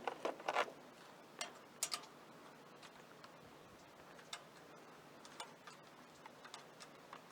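Scattered, irregular clicks of a wrench tightening the ignition coil's mounting bolts on a Briggs & Stratton opposed-twin engine. A few sharper clicks come in the first two seconds, then fainter, sparser ones.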